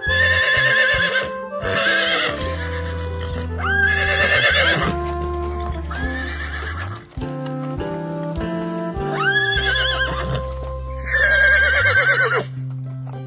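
Animal calls with a rapid warble, about six of them, each lasting about a second and starting with a quick upward swoop, over background music.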